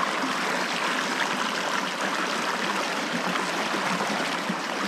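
Shallow river water running over a rocky riffle: a steady rush of stream noise.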